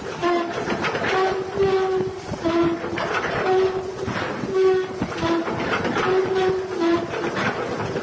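Heavy anchor chain running over a ship's anchor windlass: a continuous loud clattering of links, with short metallic squeals repeating about once or twice a second and shifting slightly in pitch.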